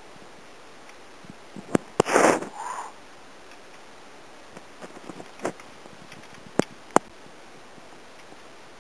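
Hikers' footsteps and scuffs on a rocky mountain path, with a few sharp clicks of boots or a trekking pole on stone. A short breathy rush about two seconds in.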